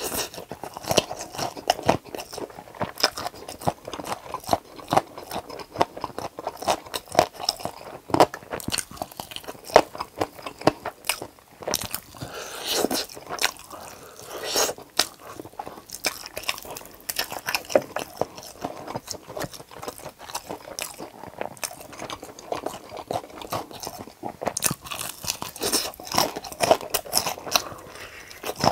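Close-miked eating of a crispy fried chicken drumstick dipped in cheese sauce: dense crunching of the fried crust, biting and chewing.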